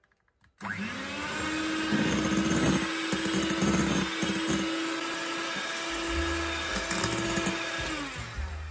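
Electric hand mixer switching on about half a second in and running steadily at a constant pitch as its twin beaters whip egg whites into meringue, then winding down near the end.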